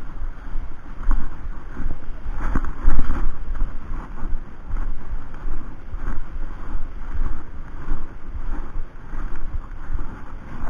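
Wind buffeting the microphone, a low rumble that swells and drops unevenly.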